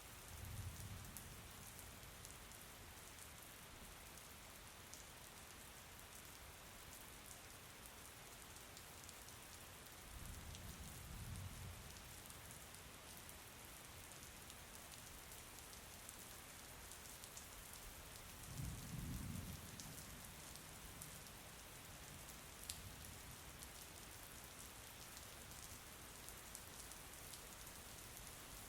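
Faint steady rain falling, with scattered sharp drop ticks. Three low rumbles swell and fade: just after the start, about ten seconds in, and most strongly about nineteen seconds in.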